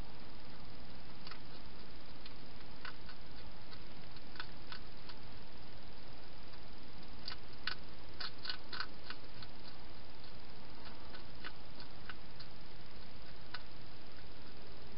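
A hedgehog crunching dry food from a bowl: irregular sharp clicks, with a quick run of them about eight seconds in, over a steady hiss.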